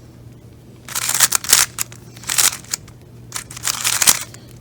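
A dry, unlubricated GAN magnetic 3x3 speed cube being turned fast in a solve: bursts of quick plastic clacking and scraping that start about a second in and come in clusters of rapid turns.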